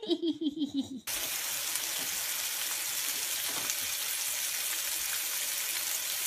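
A baby's short run of vocal sounds falling in pitch cuts off about a second in, and a steady hiss of steam takes over.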